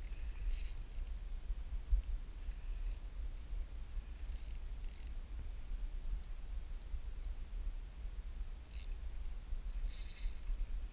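Spinning reel clicking in short, irregular bursts while a hooked fish is being played on light line, over a low steady rumble.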